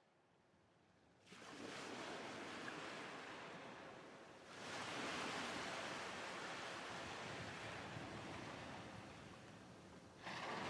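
Faint steady rushing noise that starts about a second in and swells up again about four seconds in, easing off as soft music comes in near the end.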